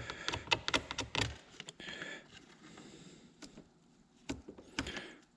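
Scattered light clicks and taps, mostly in the first half and again near the end, with a brief soft rustle about two seconds in.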